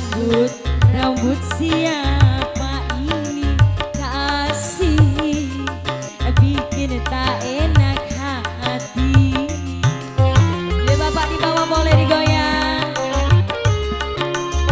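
Live dangdut band playing a song: a kendang hand-drum beat and pulsing bass under a gliding melodic lead.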